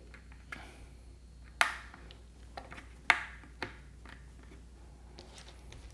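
Small clicks and light taps of crimped wire connectors being handled and pushed onto the terminals of a power jack socket in a plastic housing. The two sharpest clicks come about one and a half seconds in and about three seconds in.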